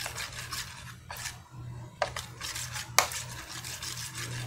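Plastic spoon stirring and scraping thick glue slime against a clear plastic tub, the slime being activated with laundry gel, with two sharp clicks about a second apart.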